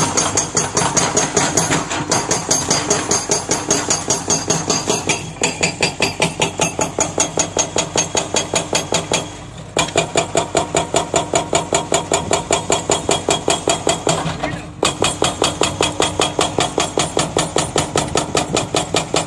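Excavator-mounted hydraulic breaker hammering its chisel into rock: rapid, even blows, with the excavator's engine running under them. The hammering stops briefly twice, about halfway through and again about three quarters of the way in.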